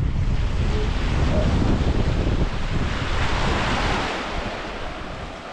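Small waves breaking and washing up a coarse sand beach, with wind buffeting the microphone. A wave surges up the shore about three seconds in, then the wash eases off.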